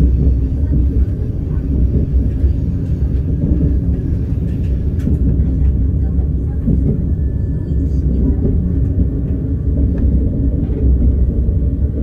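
Steady low rumble of a KTX-Sancheon train running along the track, heard from inside the passenger cabin.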